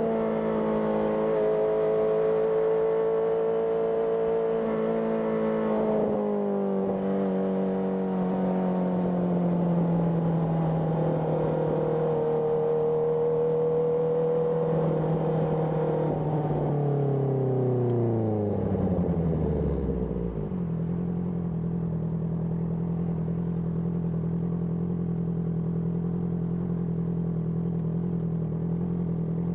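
Honda CBR650R inline-four running through an IXIL IXRACE aftermarket exhaust. The engine note holds steady, drops a step about six seconds in, then falls smoothly as the revs wind down and settles into a steady idle for the last third.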